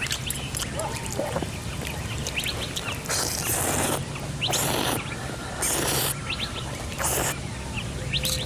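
Birds chirping, over a steady low hum. Four short bursts of loud hissing noise come between about three and seven seconds in and are the loudest sounds.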